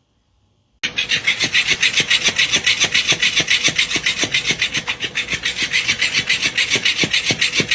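Fast, rhythmic rasping scratches, about eight strokes a second, starting suddenly about a second in and running on evenly.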